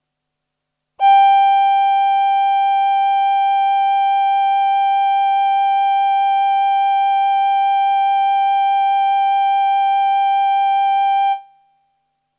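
Roland VP-330 synthesizer on its male human-voice patch, playing one held note. The note starts about a second in, holds steady for about ten seconds, then dies away quickly.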